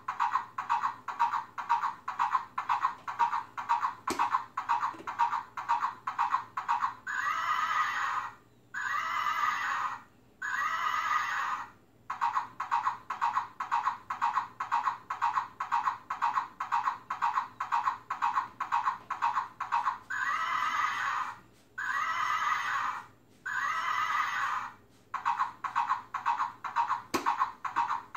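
Plush rocking horse's built-in sound unit playing recorded galloping through a small tinny speaker: quick, even clip-clop hoofbeats, broken twice by three horse whinnies in a row.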